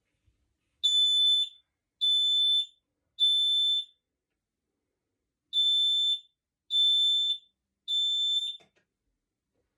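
Household smoke alarm sounding under test: six loud, high-pitched beeps of one steady tone, each about two-thirds of a second long, in two groups of three with a pause between them, the standard three-beep alarm pattern.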